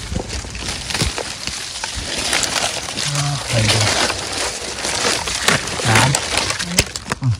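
Dry leaves, twigs and undergrowth rustling and crackling as gloved hands push through the brush, with a few short low voice murmurs over it.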